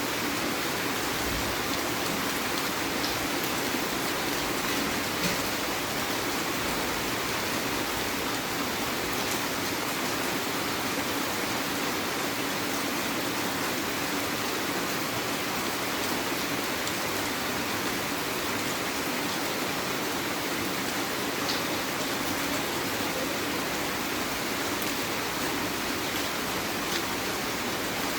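Heavy rain falling steadily, a dense even hiss with occasional faint drop ticks.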